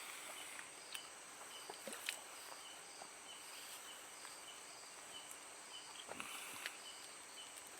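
Night insects, crickets, chirping: a steady high trill with a regular pulsing chirp repeating about every half second or so, and a few faint clicks and knocks, one about two seconds in and one about six seconds in.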